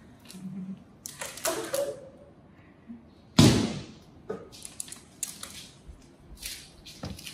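Knocks, bumps and rustles of a small pet monkey clambering on a white PVC-pipe climbing frame, with one sharp bang about three and a half seconds in.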